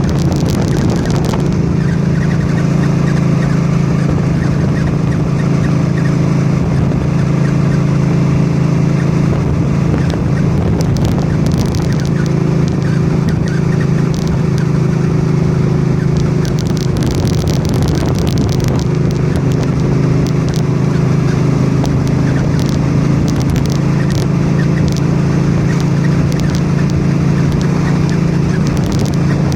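A 2006 Suzuki C50's 805 cc V-twin runs steadily at cruising speed, along with wind and road noise. Brief sharp high sounds come and go at uneven moments. This fits the nasty chirp that appears from about 75–80 km/h and has been getting more frequent and more audible, and whose origin the owner has not yet found.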